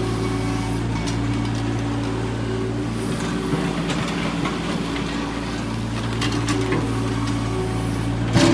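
Hydraulic excavator's diesel engine running steadily, with a few short knocks and clanks from the machine at work and a louder clatter near the end.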